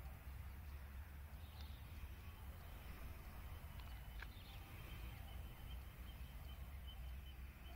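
Faint outdoor background noise: a low, uneven rumble with a few brief, faint high chirps and a thin steady high tone in the second half.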